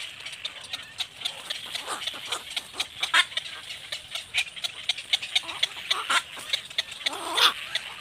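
Birds at a tree-nesting colony of cormorants and herons: a constant chatter of many short, high calls, with louder, harsher calls about three seconds in and again near the end.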